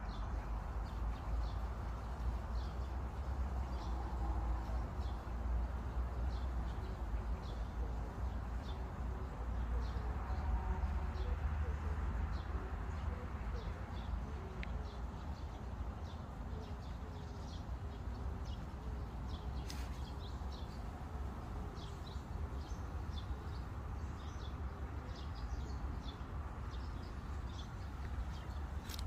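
Birds chirping and calling again and again over a steady low rumble of background noise.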